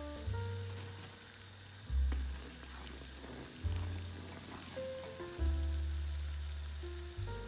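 Water bubbling at a rolling boil in a pot, stirred with a wooden spoon, under background music whose deep bass notes change every second or two beneath a simple higher melody.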